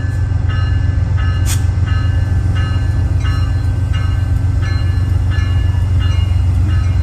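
Amtrak GE Genesis diesel locomotive running with a steady low drone, while its bell rings evenly, about one and a half strikes a second.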